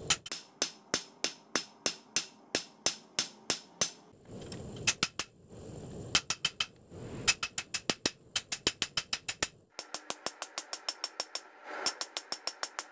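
Hand hammer striking a red-hot leaf-spring steel knife blank on a steel post anvil: sharp, ringing metal blows, about three a second with short pauses, coming quicker near the end.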